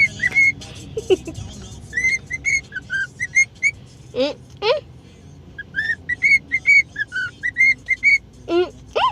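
Pet parrot whistling: phrases of short, clear notes at about one pitch, with a few quick swooping whistles around the middle and near the end.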